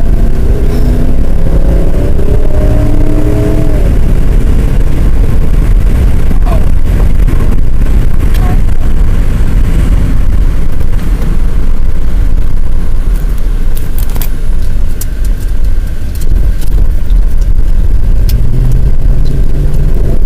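Motorcycle engine accelerating, its pitch rising over the first few seconds, then running on under a heavy low wind rumble on the microphone while riding.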